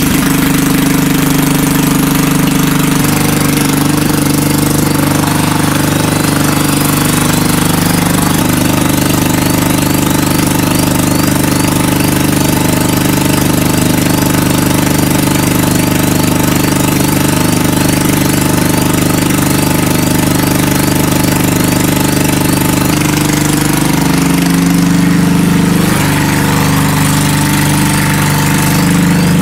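Honda EG5500CL generator's petrol engine running steadily, with a brief change in its note about three-quarters of the way through.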